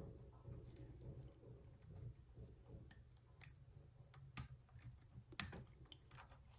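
Faint clicks and ticks of fingers handling the small plastic parts and wires of a DJI Mavic Air 2 drone's landing-gear leg, with a sharper click a little over five seconds in, over a faint low hum.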